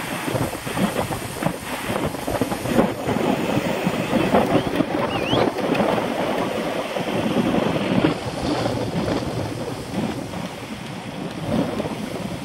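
Wind buffeting the microphone of a camera on a moving road bicycle: an uneven, gusting rumble with no steady tone.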